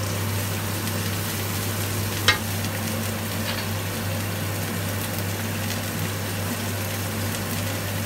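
Water mimosa and seafood sizzling in a hot non-stick wok, stirred with a wooden spatula, over a steady low hum. There is a single short click about two seconds in.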